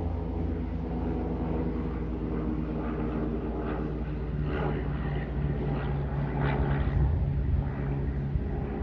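Twin-engine propeller airplane flying low overhead, its engines and propellers giving a steady, even drone that holds through most of the pass and fades out near the end.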